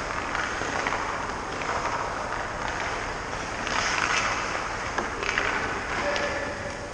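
Hockey skate blades scraping and carving on rink ice in irregular strokes about once a second, over a steady background rush.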